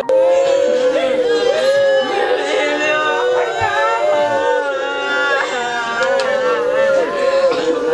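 Many people wailing and crying aloud together, with several voices overlapping and one high, wavering wail held through most of it.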